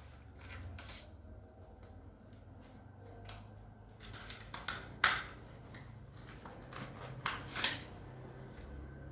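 A few sharp clicks and taps from handling small tools and parts on an opened laptop while thermal paste is being applied, over a low steady hum. The loudest click comes about halfway through, and two more follow close together near the end.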